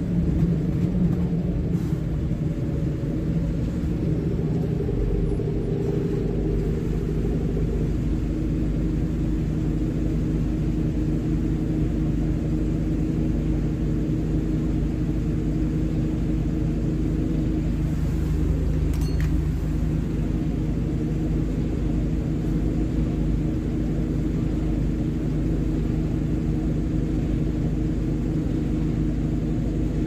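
Alexander Dennis Pointer Dart single-deck bus under way, heard from inside the passenger saloon: its diesel engine running steadily with a low rumble and the hoovering drone that enthusiasts call a thrash.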